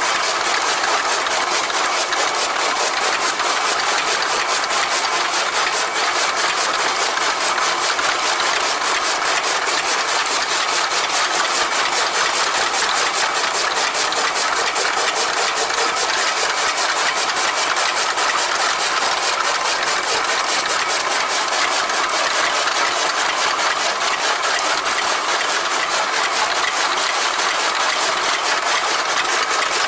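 Toka chaff cutter running steadily, its flywheel-driven blades chopping green fodder stalks into chaff with a fast, even clatter.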